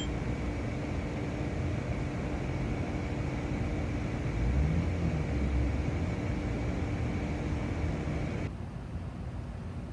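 Steady low rumble and hiss of outdoor night ambience, with a faint steady hum, swelling briefly about halfway through and turning duller near the end.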